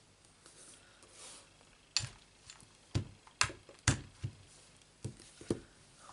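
A string of light, sharp taps and clicks as a clear acrylic stamp block and a piece of stamped card are handled and set down on a craft mat, the loudest between two and four seconds in.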